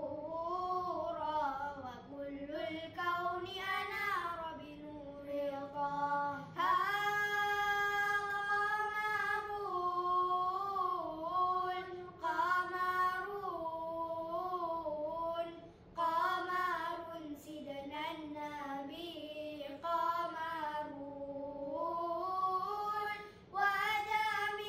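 Boys' voices singing selawat unaccompanied, an Islamic devotional chant in praise of the Prophet. The melody is full of ornamented, wavering turns and long held notes, with short breaths between phrases.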